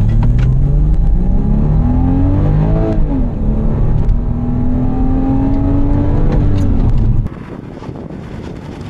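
Porsche Boxster S 986's 3.2-litre flat-six accelerating flat out from a standstill, heard from inside the cabin: the engine pitch climbs, drops at an upshift about three seconds in, climbs again, then falls away as the car brakes hard for the 0-60-0 stop. Just past seven seconds the engine sound cuts off abruptly to a much quieter background.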